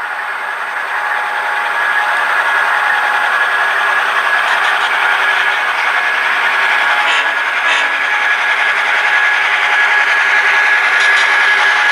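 Model train running on the layout: the hum and rail noise of a coal train of empty hoppers led by Clinchfield F-unit diesel locomotive models, growing louder as it approaches. A couple of clicks come about seven and a half seconds in.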